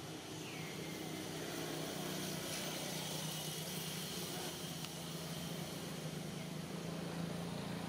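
Steady low hum of a running motor or engine over an even background hiss.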